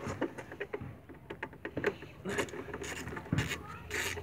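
2008 Chevy Uplander's plastic tail light assembly being wiggled and pulled loose from the body by hand: a run of small clicks, rubs and scrapes, busier in the second half, with a sharper knock about three seconds in.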